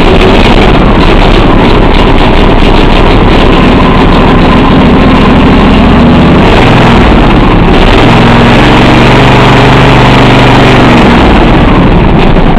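Craftsman II riding mower's engine running loud just after starting, its pitch shifting as the throttle is worked and dropping to a lower speed about eight seconds in. The new foot-pedal throttle is not opening it all the way, so it never reaches full revs.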